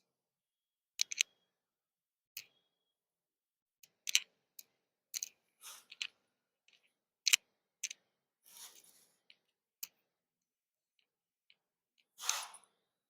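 Scattered soft clicks and short rustles of a person moving through yoga stretches, with a breathy exhale about a second before the end.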